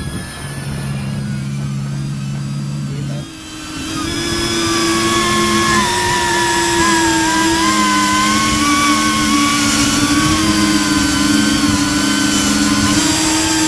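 SpeedyBee 35 cinewhoop FPV drone's motors and propellers whining in flight, the pitch wavering slightly with the throttle. About three seconds in the sound drops briefly and comes back louder, with a higher whine.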